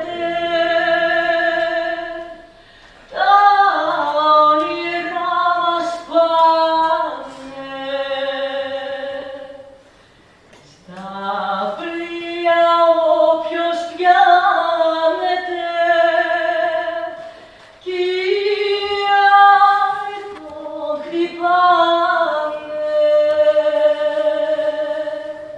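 A woman singing a slow song alone, with no instrument heard, in long held notes with vibrato, in phrases separated by short breaths.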